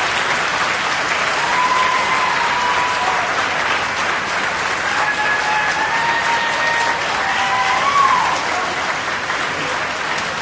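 A large audience applauding steadily in dense clapping, with a few voices cheering over it in the middle. The applause eases off slightly near the end.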